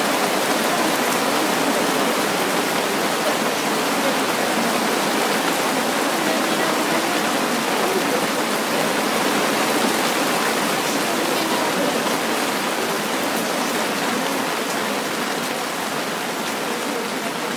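Steady rain falling on surfaces, a dense even hiss with the patter of individual drops, easing slightly toward the end.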